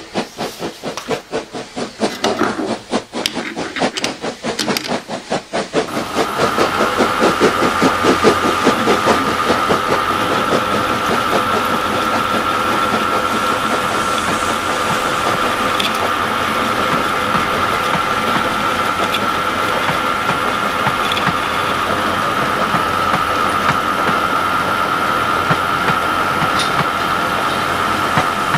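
Metal lathe running steadily with a high steady whine, facing off a round copper tube held in the chuck; it comes in about six seconds in, after a rhythmic pulsing sound.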